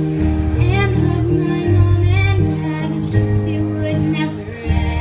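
Voices singing a song, in gliding sung phrases over an instrumental accompaniment of long held chords.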